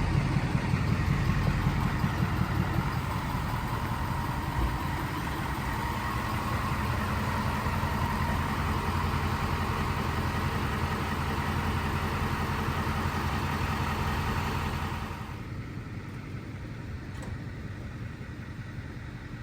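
A motor vehicle's engine running, a steady low hum under rushing road and wind noise. About three quarters of the way through it drops suddenly to a much quieter hum.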